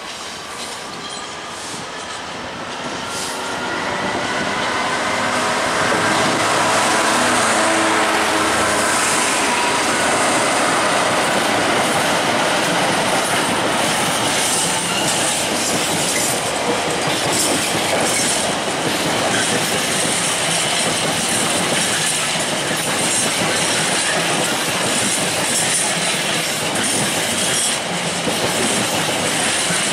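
Class 66 diesel-electric freight locomotive running past under power, its two-stroke V12 engine heard in the first few seconds. From about four seconds in it gives way to a long train of mostly empty container flat wagons rolling by, a steady loud clatter of wheels over the rail joints.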